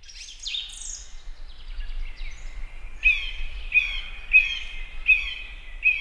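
Birds chirping: scattered short, high chirps, then from about halfway through one call repeated about five times, roughly every three-quarters of a second.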